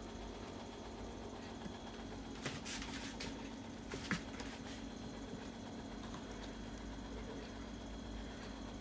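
Faint rustling and a few light clicks of hands pressing ground sesame onto a botamochi rice ball in a small bowl, with a sharper tap about four seconds in as the ball is handled toward the plate; a low steady hum sits underneath.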